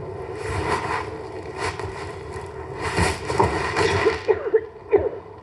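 A woman coughing in several fits, the longest about three seconds in and lasting over a second.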